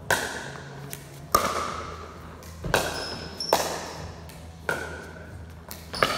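A pickleball rally: a plastic ball struck back and forth by paddles, about six sharp pocks roughly a second apart, each ringing briefly in the big hall.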